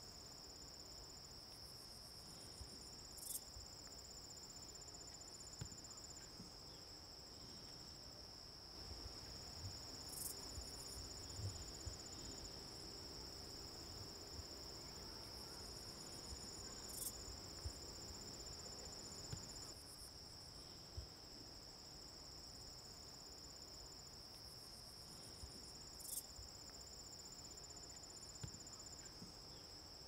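Insect chorus, crickets by the sound of it: one steady high-pitched drone, with a second, higher trill coming and going in bouts of a few seconds. A faint sharp click comes about every seven to nine seconds.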